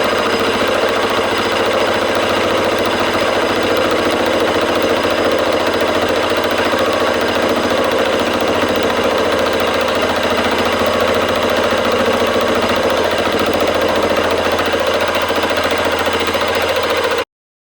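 Metalworking machine tool running steadily while machining a part, a constant motor hum with no change in pitch, cutting off abruptly near the end.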